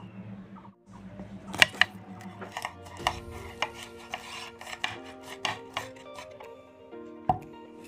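Kitchen knife chopping a green bell pepper on a wooden cutting board: sharp knocks of the blade on the board, the loudest two about a second and a half in, then roughly two a second. Soft background music with held notes plays underneath.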